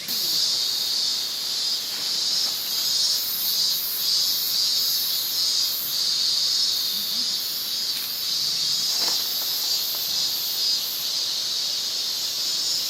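Chorus of summer insects in the woods: a steady high buzz, with a still higher trilling that pulses on and off.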